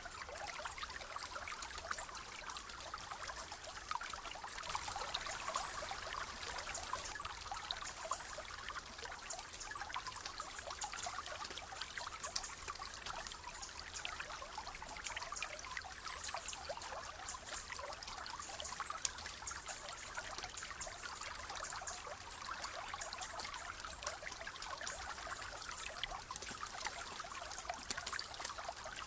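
Shallow rainforest stream trickling and splashing over stones, a steady water sound full of fine droplet splashes, with faint high chirps now and then.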